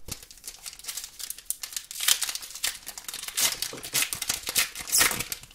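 Foil booster-pack wrapper crinkling and being torn open by hand: a dense run of crackles, loudest about two seconds in and again near the end.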